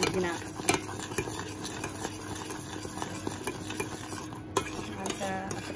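A spoon or whisk stirring and scraping a mixture in a metal pan or bowl, with short clinks against the sides.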